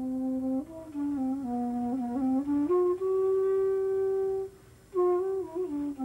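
An end-blown flute, like a recorder, playing a slow, wavering melody. It moves in small steps between low notes, then holds one long higher note. After a brief pause near the end, it starts the tune again.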